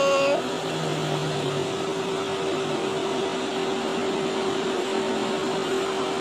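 A steady mechanical hum holding one constant tone over an even hiss, with a short lower drone about a second in.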